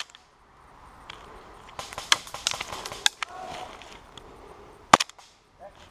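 Airsoft gunfire with BBs striking close cover: a sharp crack at the start and a louder one about five seconds in, with a scatter of irregular clicks and taps about two to three seconds in.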